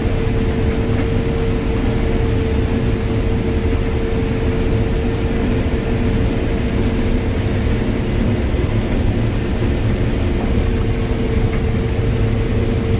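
Combine harvester running steadily while harvesting corn, heard from inside the cab: a constant low rumble with a steady mid-pitched whine over it.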